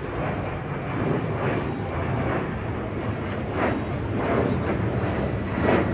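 Twin-jet airliner's engines heard from the ground as it climbs out overhead: a steady rumble of jet noise.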